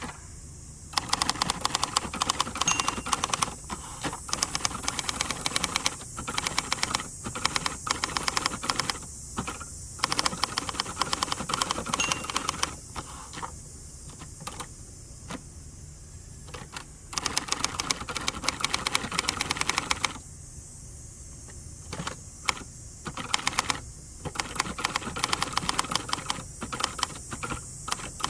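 A 1967 Hermes 3000 manual typewriter being typed on: quick runs of keystrokes in bursts, broken by a few short pauses.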